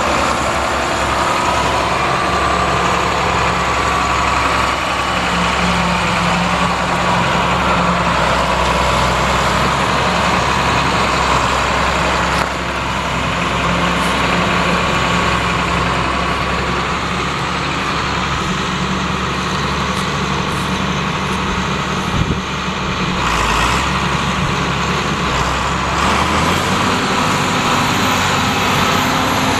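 A John Deere 8430 tractor's six-cylinder turbo diesel engine running steadily at idle, its note shifting near the end.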